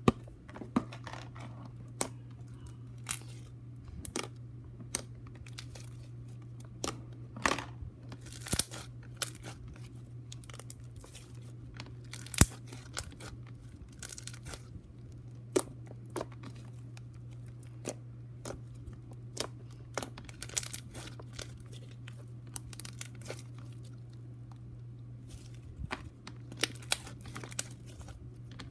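Hands poking, stretching and pulling apart a yellow fluffy slime that has gone tough: scattered sticky clicks, pops and tearing sounds, over a steady low hum.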